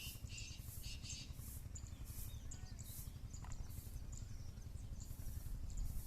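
Black cobra hissing in short, evenly repeated bursts, with small bird chirps and a low rumble underneath.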